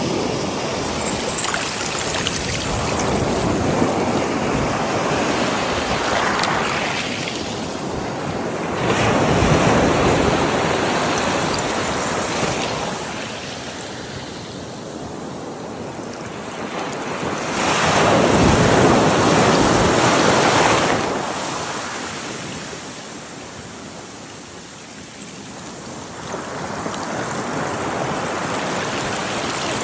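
Ocean surf: waves breaking and washing up the shore in a steady rush that swells and fades, with the strongest surges about nine seconds apart.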